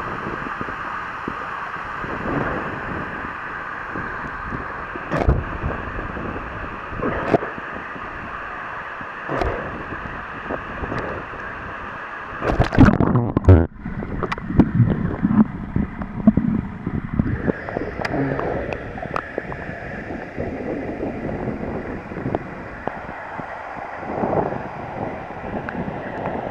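Waterfall rushing steadily into its pool, with gusts of wind buffeting the microphone in uneven bumps, the strongest a little before halfway.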